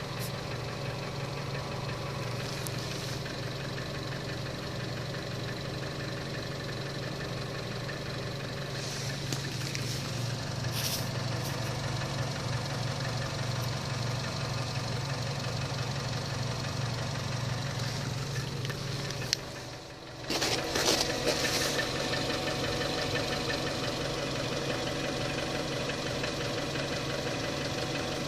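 Opel Astra J 1.4 turbo four-cylinder petrol engine idling steadily, with the extraneous noise at idle that the owner is trying to pin down. About two-thirds of the way through the sound dips briefly, then returns with a changed tone and a few clicks.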